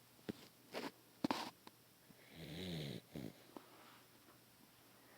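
Beagle snoring in its sleep: a few short, sharp nasal sounds in the first second and a half, then one longer snore about two seconds in whose pitch rises and falls.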